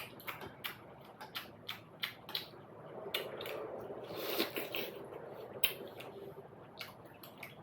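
Close-up eating sounds of a person eating momos: wet chewing and mouth smacks, many short sharp clicks, with a denser stretch of chewing around the middle.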